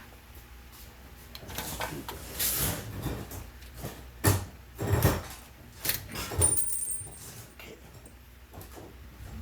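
Clattering and knocking of small hard objects being handled: a string of irregular clicks and knocks, loudest about four to six seconds in.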